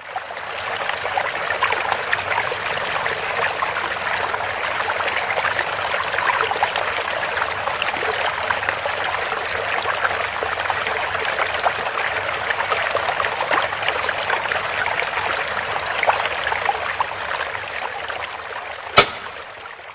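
A recorded flowing-water sound effect, a steady rushing stream, played through the stage loudspeakers; it fades in at the start and fades out near the end. A single sharp click sounds about a second before the end.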